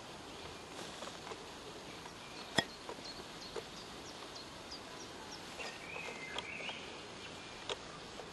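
Small birds chirping in short high notes over a steady background hum of outdoor noise, with a longer call about six seconds in. One sharp click about two and a half seconds in is the loudest sound.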